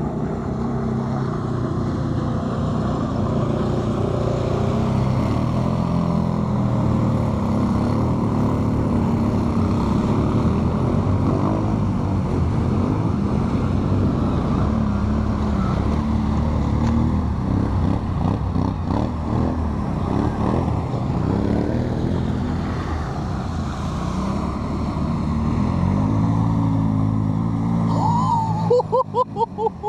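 Quad bike (ATV) engines running and revving as the quads wade through a shallow river, with water splashing around them. Near the end the engine sound breaks into a quick run of short pulses.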